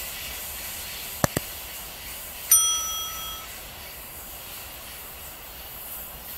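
Two quick mouse-click sound effects, then a bright bell ding lasting about a second, from an animated subscribe-button overlay. Underneath, the faint steady noise of a container freight train rolling away.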